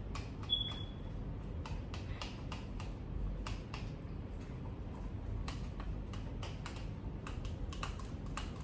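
Sticky homemade slime being mixed by hand, squelching in a fairly quiet, irregular run of small clicks and pops.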